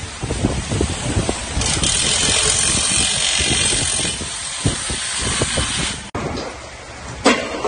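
Storm wind buffeting the microphone over a hiss of rain and rushing water. The hiss swells much louder about two seconds in and stops abruptly about six seconds in.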